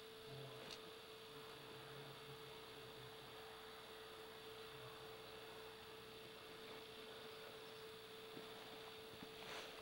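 Near silence: faint hiss with a steady low hum from the recording itself.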